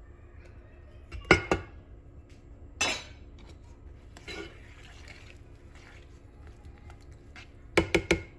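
A spoon knocking and clinking against a nonstick pan of peas cooking in water as they are stirred: two sharp knocks about a second and a half in, another near three seconds, and a quick cluster of knocks near the end.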